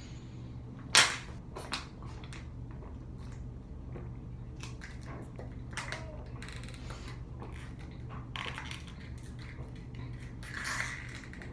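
Thin plastic water bottle crackling as it is squeezed and crushed against the mouth while the water is drunk from it. A sharp crack about a second in is the loudest, followed by scattered softer crackles.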